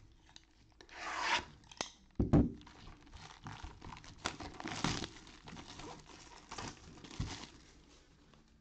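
Cellophane shrink-wrap being torn and crinkled off a cardboard hobby box of baseball cards, with one dull knock of the box a little after two seconds in.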